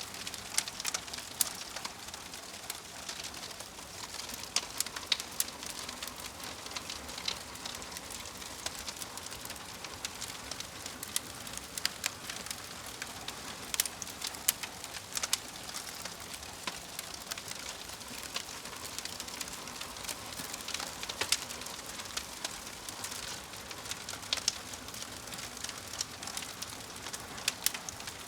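Wood fire crackling: irregular sharp pops and snaps, several a second, over a soft steady hiss of burning.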